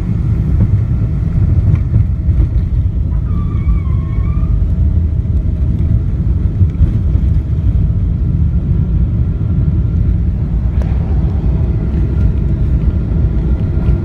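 Jet airliner cabin noise during landing and rollout on the runway, heard from a window seat over the wing: a loud, steady low rumble of engines, airflow and wheels, which grows a little fuller about eleven seconds in. A brief wavering high tone sounds about three seconds in.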